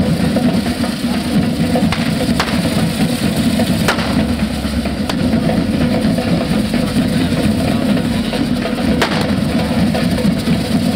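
Drum band of a Catalan devils' group (diables) playing a steady, dense beat on bass drums and snares, with a few sharp cracks standing out now and then.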